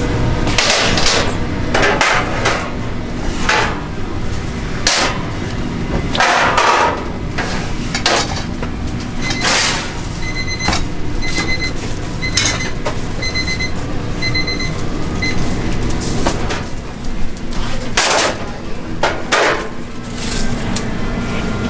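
Kitchen clatter at a street-food stall: repeated knocks and clacks of utensils and containers over a steady background hum. A run of short, high electronic beeps starts about nine seconds in and lasts several seconds.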